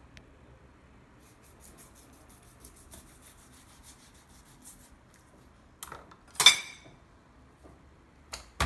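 Kitchen knife sawing through half-thawed fish in quick, faint rasping strokes, followed by loud clattering of kitchenware with a short metallic ring about six seconds in and again near the end.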